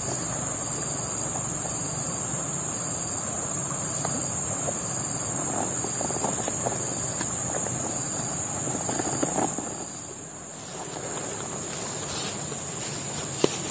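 Steady high-pitched drone of forest insects, with a few faint knocks over it. The drone dims briefly about ten seconds in.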